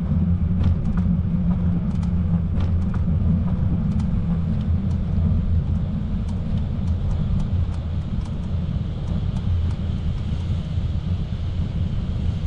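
Steady low rumble of a bicycle ride picked up by the camera, road and wind noise, with faint scattered ticks.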